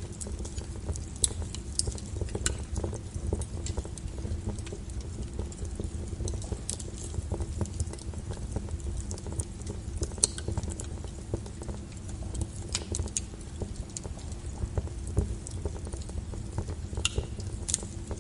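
Wood fire burning in a fireplace, with a steady low rumble and frequent irregular crackles and pops of burning wood.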